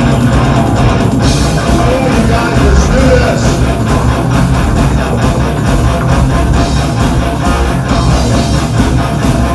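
Industrial metal played live by a full band: distorted electric guitar, drum kit and keyboards, loud and dense with a heavy low end.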